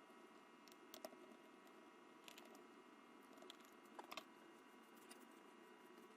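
Near silence with faint, scattered small clicks and ticks of a screwdriver and tiny screws being worked out of a laptop's bottom cover, over a faint steady hum.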